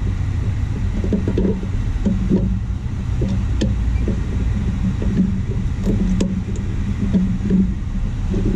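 Steady low rumble, with a few light metallic clicks of a wrench working a bolt on a rear disc brake caliper.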